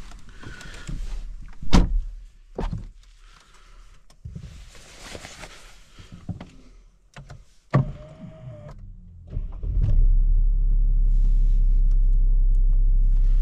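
Car door shut with a solid thud about two seconds in, followed by knocks and rustling as someone settles into the driver's seat and a second thunk a few seconds later. About ten seconds in the car's engine starts and settles into a steady idle.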